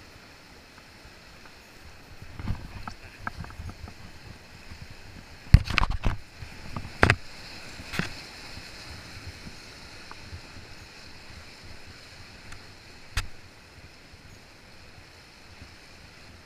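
Sea washing over rocks as a steady hiss, with knocks and rubbing from handling close to the microphone: a scatter of them a couple of seconds in, the loudest cluster about halfway, and one sharp knock near the end.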